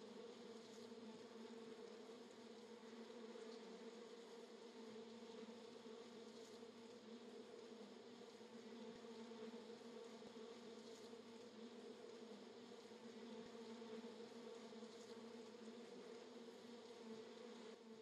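Faint, steady buzzing hum, pitched low with an overtone an octave above, unchanging throughout.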